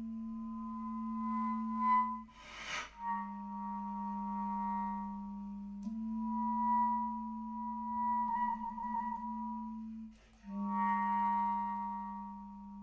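Solo bass clarinet holding long multiphonics: a steady low note with several higher tones sounding above it, each chord changing to the next. About two and a half seconds in there is a short rush of airy breath noise, and around eight seconds in the upper tones waver like a trill.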